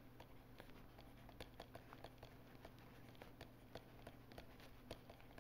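Near silence with faint, irregular light ticks of a stylus tapping and sliding on its writing surface as words are handwritten.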